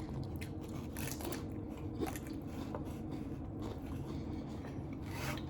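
A person chewing and biting into a taco, with soft crunches and mouth clicks scattered through.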